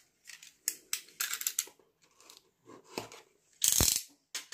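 Cardboard box being handled and opened: scattered light scrapes and clicks, with one louder scrape lasting about half a second near the end.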